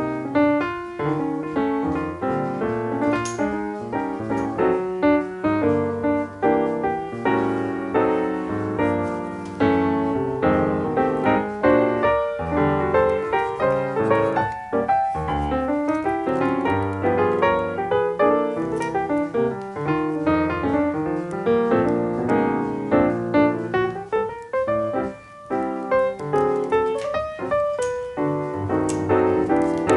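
Background piano music, a fast run of many notes.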